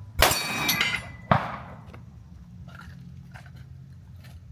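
Two sharp metallic impacts about a second apart. The first rings with a bright metallic tone that dies away within about a second; the second is a shorter crack that fades quickly. A low steady hum follows.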